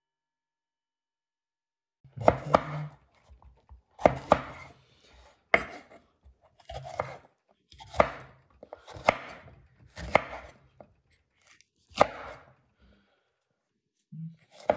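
Chef's knife slicing a red bell pepper on a wooden cutting board. About two seconds in, sharp knocks of the blade hitting the board begin, about ten of them at an uneven pace of roughly one a second, with faint crunching of the pepper flesh between them.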